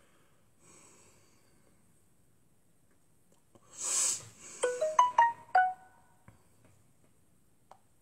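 A short electronic jingle of about five quick notes, like a device notification or ringtone, coming just after a brief hiss.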